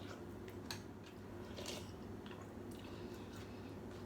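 Someone eating noodle soup: faint chewing and slurping with a few soft clicks scattered through, over a low steady hum.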